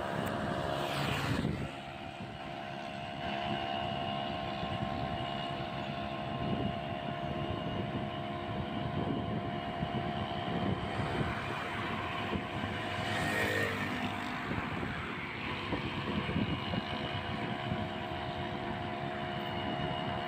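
A vehicle's engine running steadily, with road and wind noise, while travelling along a road.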